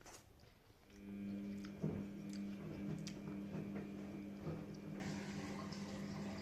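Close-up eating sounds: soft wet chewing and squishing with a few sharp clicks, over a steady low hum that sets in about a second in.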